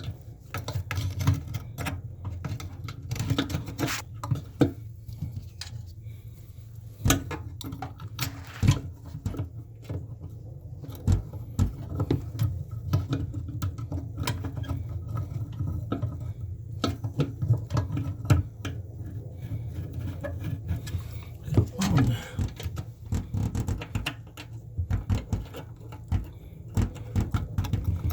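Irregular small clicks, taps and scrapes as a bathtub overflow's cover plate and screws are handled and pushed into place on the overflow fitting, over a low steady hum.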